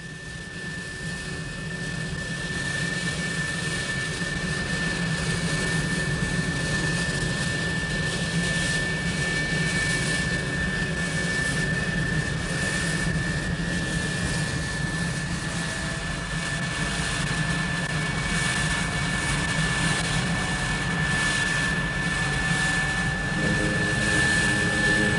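F-4 Phantom jet's twin turbojet engines running on the ground: a steady high whine over an even rushing noise, which builds over the first few seconds and then holds.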